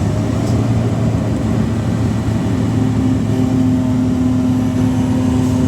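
Portable air compressor's engine running at idle just after start-up, loud and steady, valves closed and not yet making air. A steady low hum firms up at the start, and a steady higher tone joins about halfway through.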